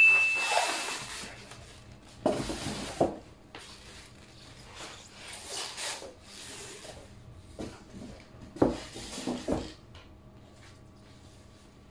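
Polystyrene packing blocks rubbing and squeaking against the cardboard box, and a protective wrap rustling, while an air fryer is unpacked. The sounds come in several irregular bursts and go quieter over the last couple of seconds.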